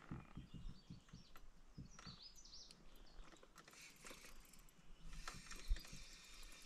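Quiet lakeside ambience with faint bird chirps now and then, and a few soft low knocks.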